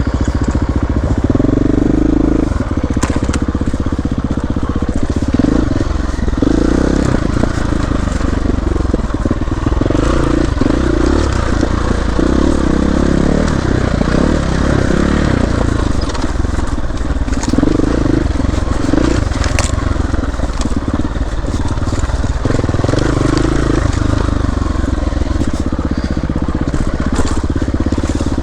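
Dirt bike engine running continuously on a trail, its pitch rising and falling as the throttle opens and closes, with a steady rumble and noisy crunching underneath.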